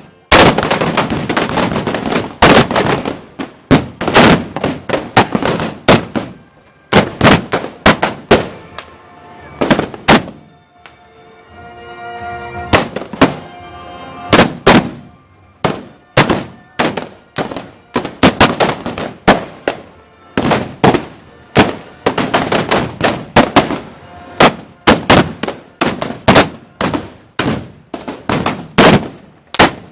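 Black-powder arquebuses firing blank shots in a ragged fusillade, often several shots a second. The firing thins out for a few seconds in the middle, where band music shows through, then picks up again.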